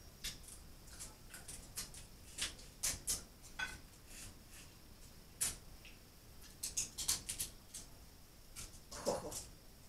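Snow crab legs being cracked and picked apart by hand: an irregular run of sharp shell cracks and clicks, with a denser crunch near the end.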